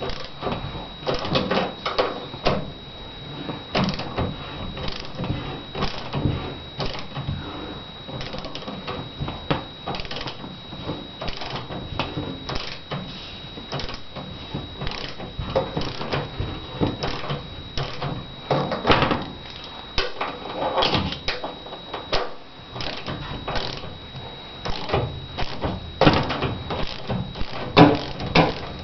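Irregular clicks, knocks and scrapes of hand handling, like parts, doors or drawers being moved and opened, over a faint steady high-pitched whine.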